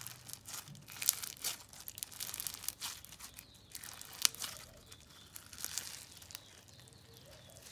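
Crunchy crystal-bead slime being squeezed and stretched by hand, its beads giving irregular crackles and pops. The slime is slightly stiff from a little too much activator.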